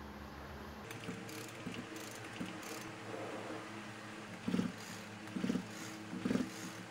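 Seized Husqvarna 440 chainsaw being worked by hand to free its piston after WD-40 in the cylinder: scattered small mechanical clicks, then three short, louder bursts of rasping mechanical noise about a second apart near the end.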